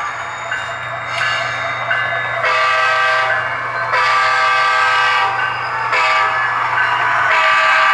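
Sound decoder of an HO-scale Athearn Genesis Norfolk Southern SD60E model locomotive playing a multi-tone diesel air horn through its onboard speaker in a series of blasts, several of them long, over a steady low engine drone.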